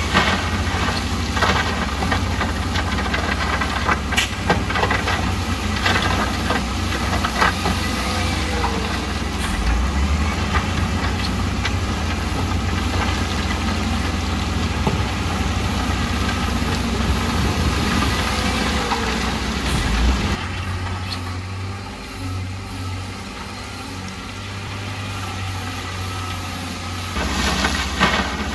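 Heavy diesel construction machinery running, a wheel loader or dump truck engine with a deep steady rumble and scattered clanks and knocks. The engine sound drops off about two thirds of the way through and rises again near the end.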